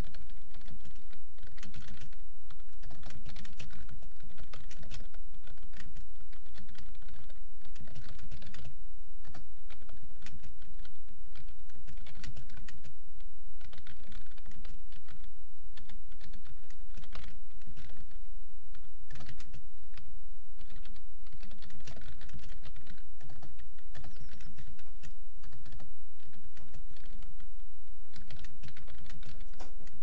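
Fast, continuous typing on a computer keyboard at around 50 to 56 words a minute, a dense run of irregular key clicks, over a steady low hum.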